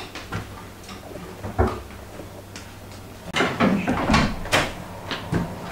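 Refrigerator door being opened, with a click about a second and a half in, then a run of knocks and rattles from the door and shelves about three and a half seconds in.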